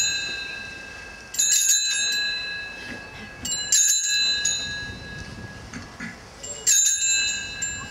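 Altar bells rung at the elevation of the host during the consecration. There are three rings, each a quick jangle of several strikes whose high, clear tones ring on for a second or two.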